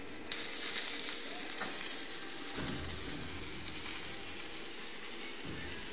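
Electric arc welding on a steel frame: the arc strikes about a third of a second in, then sizzles and crackles steadily.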